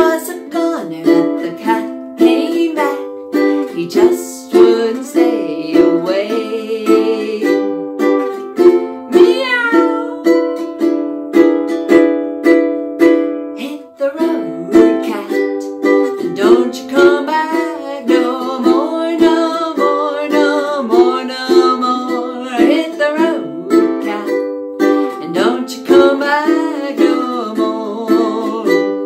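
Ukulele strummed in a steady rhythm of chords, with a woman singing along to it. There is a brief break about halfway through.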